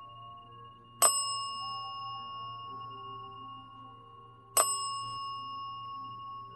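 A small metal bell struck twice, about three and a half seconds apart; each strike rings on for a long time, over faint background music.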